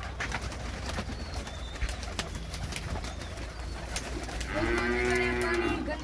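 Pigeons cooing with scattered clicks and scuffs of footsteps on dirt, and a single drawn-out call that rises and falls in pitch, lasting just over a second, about four and a half seconds in.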